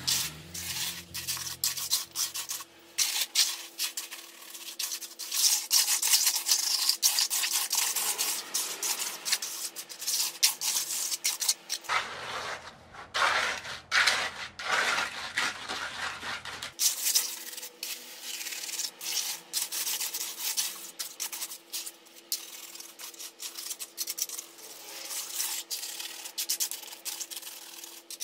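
Steel plastering trowel scraping and smoothing wet cement-and-gravel mortar, a gritty rasping in quick, irregular strokes.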